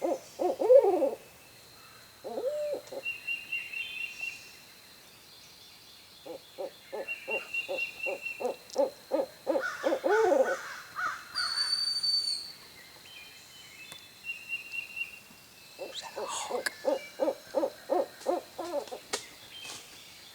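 Owl hooting in three bouts of rapid, rhythmic hoots, each run closing on a long falling note, with quiet pauses between the bouts.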